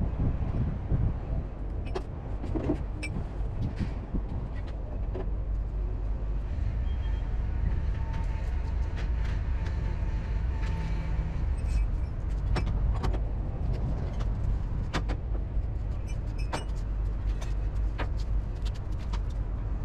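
HGV truck's diesel engine running steadily, heard from inside the cab, with scattered light clicks and rattles.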